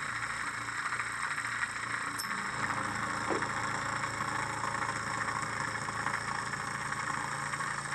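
A small lamina-flow Stirling-like hot-air engine running fast, near 1700 rpm, with a fast even pulse, under the steady hiss of a propane torch flame. A faint tick is heard about two seconds in.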